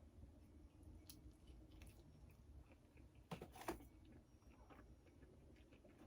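Faint mouth sounds of someone chewing vegetable pizza, soft scattered clicks with two louder smacks about three and a half seconds in, over a quiet room hum.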